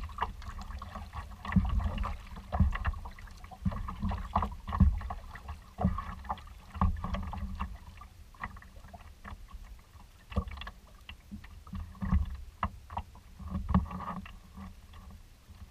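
Small choppy waves slapping and knocking against a kayak's hull as it moves through the water, in irregular thumps and splashes over a steady low rumble, heard through a camera mounted on the bow.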